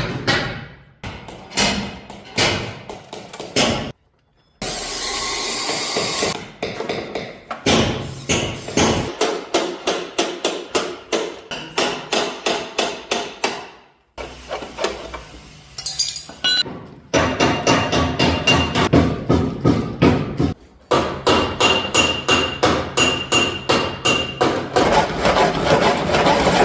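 Hammer striking car body sheet metal in a steady run of blows, a few per second, the later strikes ringing metallically: panel beating. The hammering is broken by a few abrupt cuts and a short stretch of hissing noise about four seconds in.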